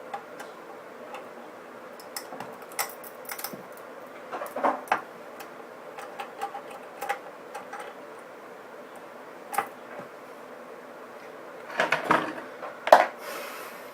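Irregular small clicks and taps from a phone screen and repair tools being handled on a hot plate, with a few louder clusters of clatter about a third of the way in and near the end.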